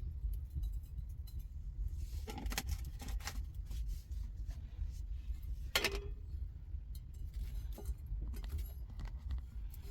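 Several clinks and knocks of small hard objects, the loudest a single ringing clink about six seconds in, over a steady low rumble.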